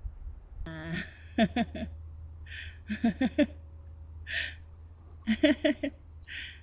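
Pomeranian giving short, gruff barks in quick runs of three to five, three runs in all, with sharp breathy huffs between the runs.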